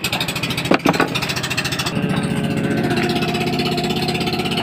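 Outrigger fishing boat's engine running with a fast, even chugging. About two seconds in it grows a little louder and steadier, with a clearer pitch.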